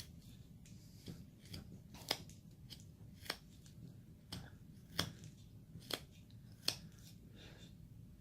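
Carving knife cutting basswood in short strokes: a quiet string of irregular sharp snicks as chips come off, a few of them louder than the rest.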